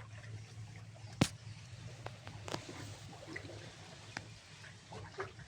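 Water dripping and lapping in standing floodwater, heard as scattered small drips and splashes over a low steady hum. A single sharp knock comes about a second in.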